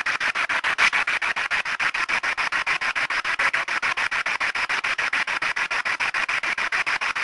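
Ghost box (spirit box) sweeping through radio stations: rapid, even pulses of static, about eight a second.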